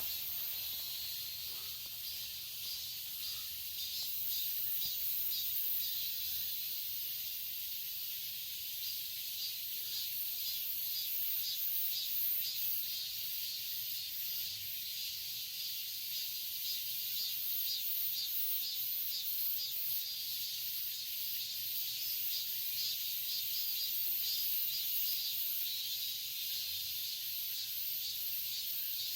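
Chorus of cicadas: a dense, high-pitched buzzing that pulses rapidly and keeps on without a break.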